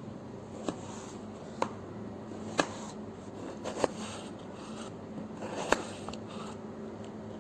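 Kitchen utensils knocking and clinking against cookware: about five sharp taps roughly a second apart, with some brief scraping in between, over a steady low hum.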